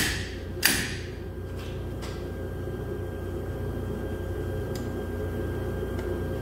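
Slide hammer's sliding weight slamming against its stop to pull a Nissan Titan rear axle shaft: two sharp metal clanks in the first second, then a few faint clicks over a steady background hum.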